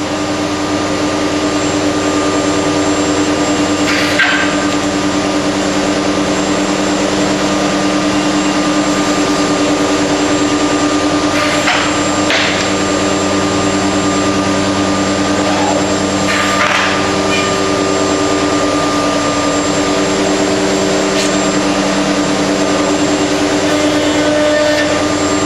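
CNC router spindle with an up-shear cutter machining cherry, pocketing out material: a steady whine over the hiss of cutting and chips, with a few sharp knocks along the way.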